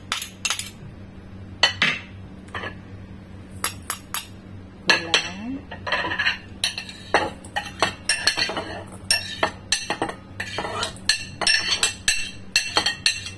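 Metal spoon clinking and scraping against a stainless steel mixing bowl and the small dishes it scoops from, as minced garlic and chopped water chestnut are knocked off into the bowl. A run of sharp, irregular clinks, busiest in the second half.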